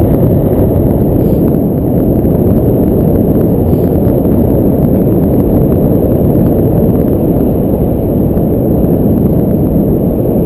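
Wind noise from the airflow over a GoPro's microphone during paraglider flight: a loud, steady, low rush.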